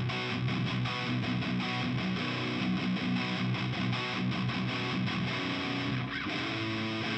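Electric guitar played through a Wampler SLO Distortion pedal into an Orange Micro Terror amp: a high-gain, Soldano-style distorted tone, riffing and chords played continuously, with a change of notes about six seconds in.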